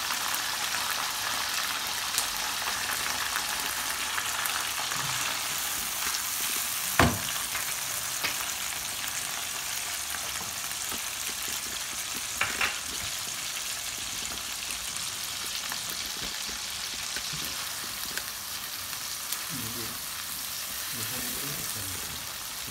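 Chopped onions frying in hot oil in a karahi, a steady sizzle. A single sharp knock comes about seven seconds in, and a smaller clatter comes about halfway through.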